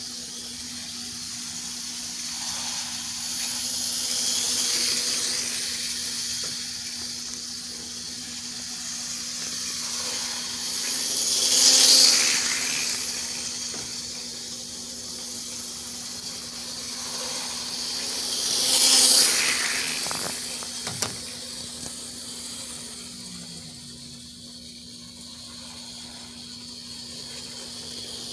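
HO scale electric model train running around its track, wheels and motor giving a steady high hiss with a low hum beneath. The sound swells each time the train passes close, about every seven seconds, and there is one sharp click about three quarters of the way through.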